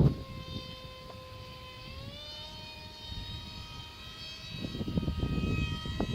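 Electric motor and propeller of a foam-board RC J-20 model plane whining in flight as a steady tone that rises in pitch about two seconds in. The whine is loud for the little thrust it gives, which the owner blames on the propeller. From about four and a half seconds, gusts of wind buffet the microphone.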